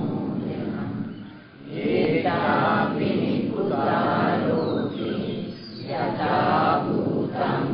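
Buddhist devotional chanting: slow recitation in long held phrases, with short breaths about a second and a half in and again near six seconds.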